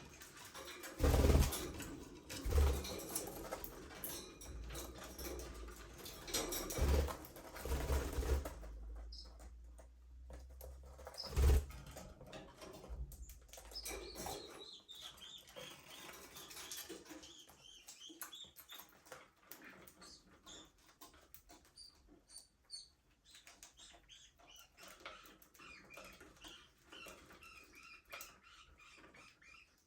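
Budgerigars in an aviary: noisy bursts of wing flapping with several thumps through the first half, then a run of quick, high chirps and warbles.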